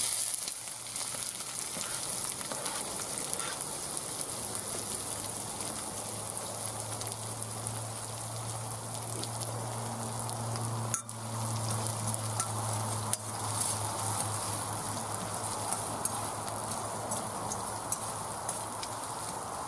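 Diced onions sizzling steadily as they fry in hot oil in a steel wok over a wood-burning stove, with the odd scrape of a stirring spoon. A low steady hum comes in for several seconds in the middle.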